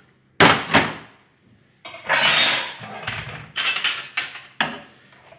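A ceramic dinner plate is set down with a clatter on a stainless-steel stovetop, followed by a longer scraping rattle. A quick run of metal clinks comes near the end, as a utensil is taken from a hanging kitchen rail.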